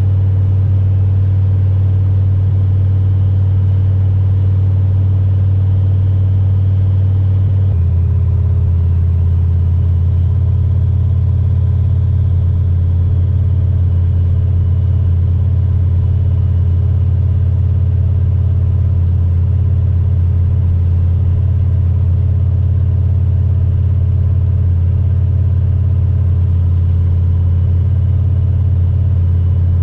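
LQ4 6.0-litre V8 in a swapped pickup running at a steady highway cruise: a constant low drone whose tone shifts about eight seconds in. The engine has a light, intermittent misfire, which the owner traces to a split spark plug wire on cylinder 8.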